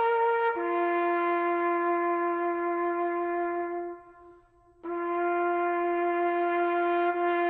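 Slow solo music on a brass-like wind instrument playing long held notes: a short note, then one lower note held for about three seconds, a brief break about four seconds in, and the same note held again.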